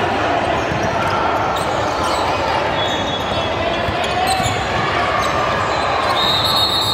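Basketball game sound in a gym: a steady wash of crowd noise and voices, with a basketball bouncing and a few short high squeaks.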